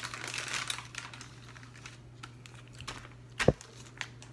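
Small clicks and rustling of MRE packaging and utensils being handled, with one dull knock about three and a half seconds in, over a steady low hum.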